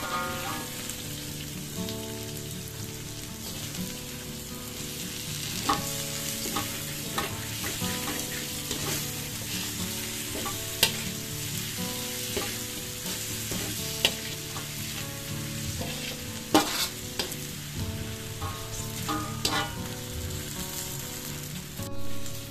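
Prawns and sauce sizzling steadily while being stir-fried in a metal wok. The metal spatula scrapes and turns the food, with a few sharp clicks where it knocks against the wok.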